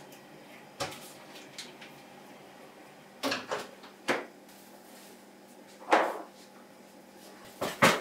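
Kitchen handling sounds: a refrigerator door opening and shutting and things being set down on a counter and on top of a microwave, heard as a handful of separate knocks and clunks, the loudest about six seconds in.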